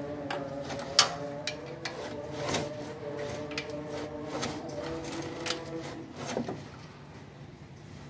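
Socket ratchet clicking irregularly as bolts on the engine's underside are turned, with one sharp metallic click about a second in.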